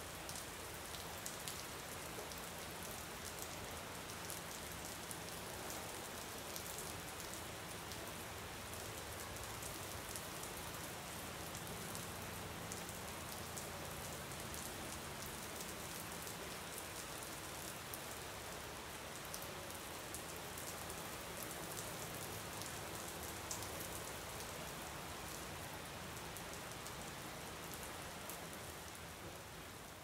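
Steady rain falling: a dense, even hiss peppered with fine drop ticks, fading out near the end.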